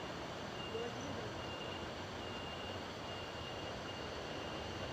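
Steady rush of flowing river water, with a faint thin whine coming and going above it.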